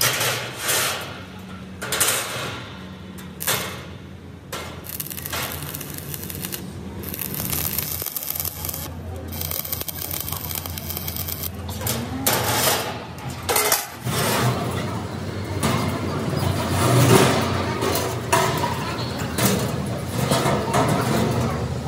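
A few sharp hammer knocks on sheet steel, then a stick (arc) welder crackling and hissing steadily as it tack-welds a steel plate onto the fuel tank. A louder mix of workshop noise fills the last several seconds.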